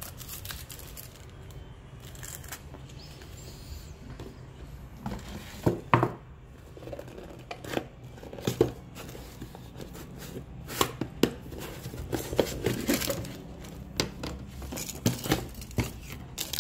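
Plastic packaging and bubble wrap crinkling as watch boxes are handled, with scattered knocks and clicks from the boxes, the loudest about six seconds in.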